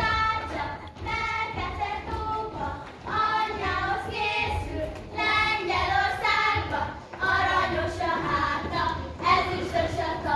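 A group of young girls singing a Hungarian folk song together in unison, in short phrases with brief breaths between them.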